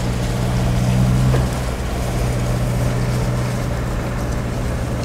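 A vehicle driving over a shingle beach: its engine runs as a steady low drone under the rumbling noise of the tyres on the stones, heard from inside the cab.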